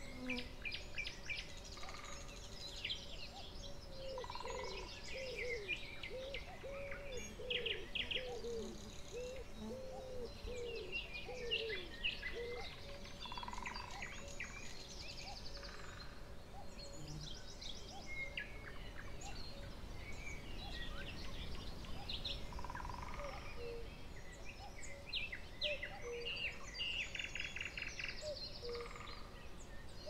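Several wild birds singing and calling, with many quick chirps and trills throughout and a run of lower repeated calls between about four and eleven seconds in.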